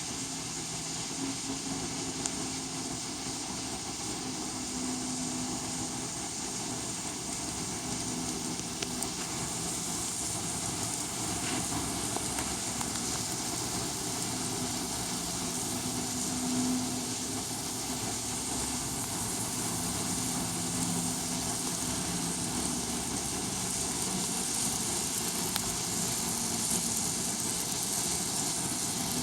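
N-scale model oil train running along the layout track, a steady mechanical hum with no breaks.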